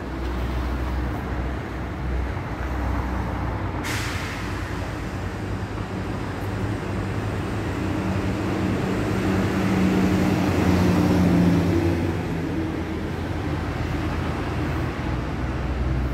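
Road traffic running steadily, with a short sharp hiss about four seconds in. A heavy vehicle's engine hum swells and then fades away in the middle.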